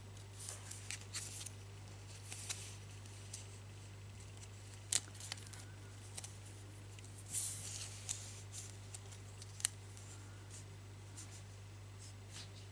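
Faint handling sounds of a thin doubled wire and a soft tape measure being rubbed and moved between the fingers: scattered small ticks and short rustles, over a steady low hum.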